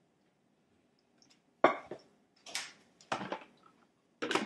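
Kitchenware knocking and clinking: a pot and food processor parts being handled and set down. Several separate sharp knocks begin about a second and a half in.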